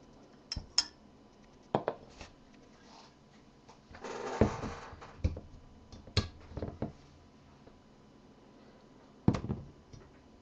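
A glass bourbon bottle and a small stemmed glass being handled on a desk: a scattering of light clinks and knocks, a short rustling scrape about four seconds in, and a firmer knock near the end as the bottle is set down.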